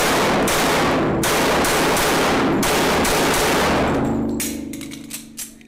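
A long burst of rapid automatic gunfire, the shots running together without a break. Near the end it fades out into a low ringing tone and a few light clinks.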